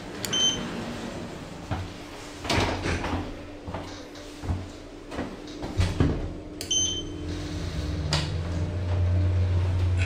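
Inside a Schindler machine-room-less lift: a short electronic beep as the floor button is pressed, then knocks and rumbles as the doors slide shut. Another beep comes near the middle, and for the last four seconds the car travels with a steady low hum that swells slightly.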